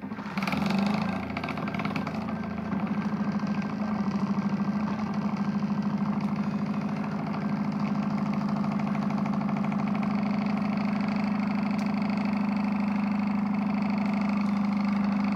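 Square computer cooling fan starting up and spinning a heated metal sugar cup, running with a steady hum and a fast flutter as it flings molten sugar out into cotton candy threads.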